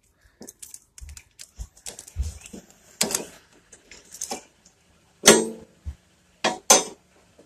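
Metal motorcycle lock being handled and hung on the bike: a run of light clicks and rattles, with sharper clacks about three seconds in and again three times in the last couple of seconds.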